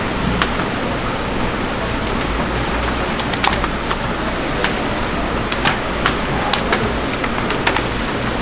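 Live yellowtail thrashing in a perforated plastic fish crate, its body and tail slapping the crate in scattered sharp clicks and knocks, over a steady rushing noise.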